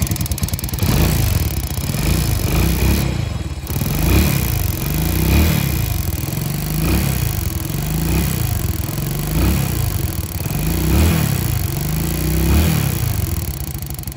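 Rusi Yuri 110 Wave-style motorcycle's single-cylinder engine being cranked over again and again with the spark plug out, so the plug can be seen sparking against the engine in a test of the ignition coil and high-tension lead. The sound swells and fades about every second and a half.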